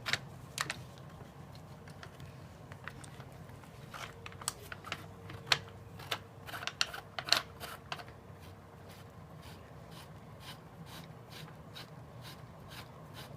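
Irregular light clicks and ticks of a screw being driven in by hand with a screwdriver during reassembly of an airsoft rifle, busiest a few seconds in and thinning out towards the end.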